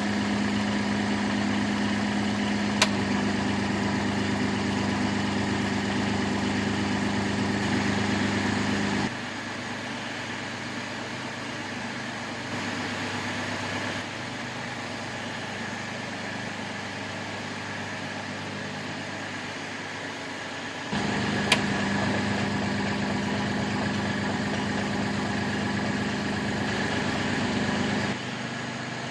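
Small excavator's engine idling steadily with a low hum. The level and tone change abruptly several times, and there are two sharp clicks, one near the start and one past the middle.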